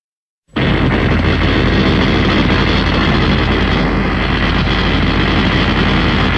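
Giant-robot sound effect: a loud, steady, engine-like mechanical drone with a low hum under a dense rushing noise. It starts abruptly about half a second in and holds level.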